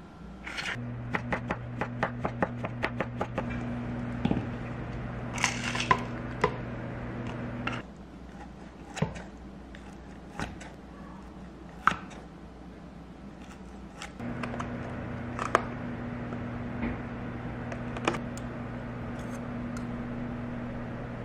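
Microwave oven running with a steady low hum, starting about a second in with a quick run of clicks and stopping abruptly after about seven seconds. Scattered clicks and knocks follow in the gap, including kitchen scissors cutting, and a microwave hum starts again about fourteen seconds in.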